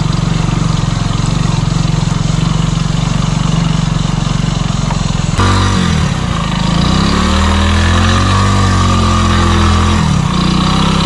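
Motorcycle engine running under way on a dirt track. About halfway through, the engine note changes abruptly, then falls and rises again as the throttle and road speed change.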